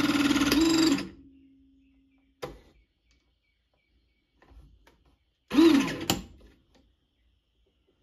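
Battery-powered hydraulic crimper's motor and pump running steadily as the ram presses a copper lug onto a battery cable, stopping abruptly about a second in, followed by a click. About five and a half seconds in, a second short burst from the tool falls in pitch, with a sharp click.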